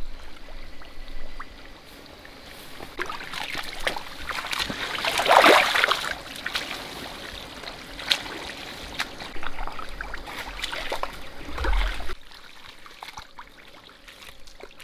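Shallow water splashing and trickling in irregular bursts, loudest about five seconds in, then dropping off suddenly about twelve seconds in.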